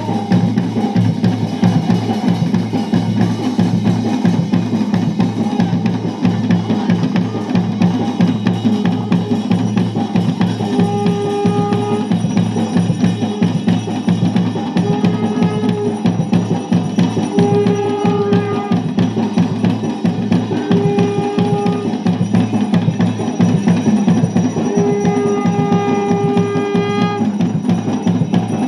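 Garhwali dhol drumming for a jagar, dense fast strokes at a steady driving beat. A held high note sounds over it about five times in the second half.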